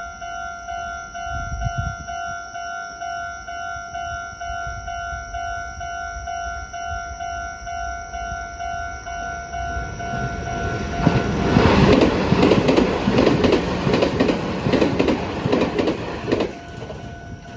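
Japanese railway crossing alarm ringing with a steady, rhythmic electronic ding. About eleven seconds in, a train passes with loud wheel clatter that drowns the bell for about five seconds; the ding comes back near the end.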